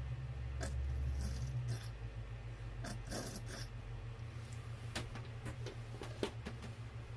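A steady low hum runs under a handful of small clicks and taps from a plastic squeeze bottle being handled, squeezed over a paint cup and set down. The sharpest tap comes near the end.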